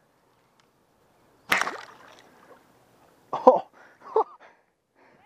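A compound bowfishing bow is shot at a fish about a second and a half in: one sudden loud snap that fades quickly. Two short, louder sounds follow a couple of seconds later.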